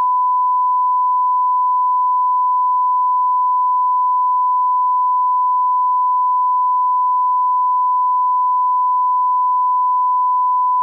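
Steady 1 kHz electronic test tone: one pure pitch held without a break.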